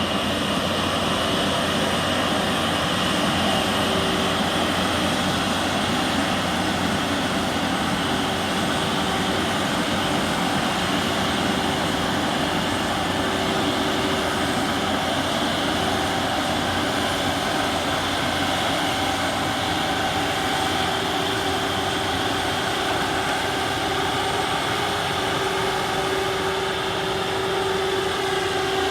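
Asphalt saw running steadily while cutting pavement, a constant engine note with a steady high tone over it.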